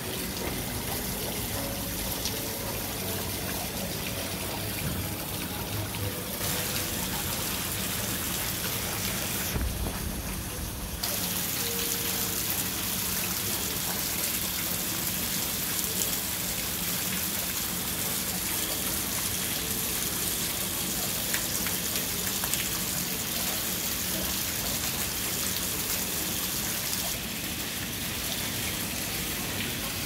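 Water falling over a rock water feature and splashing steadily into a pond, an even hiss with no break, a little louder from about a third of the way in.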